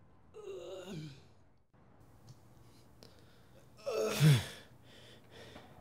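A man groaning in pain twice: a short falling groan about half a second in, then a louder, breathy grunt with a falling pitch about four seconds in.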